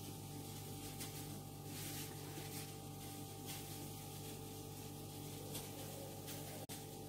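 Quiet steady electrical hum with hiss: room tone. A single sharp click comes near the end.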